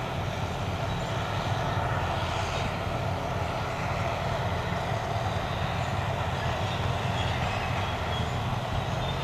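Komatsu crawler dozer running as it pushes a pile of earth with its blade: a steady, low diesel engine drone, with a few faint, short high squeaks.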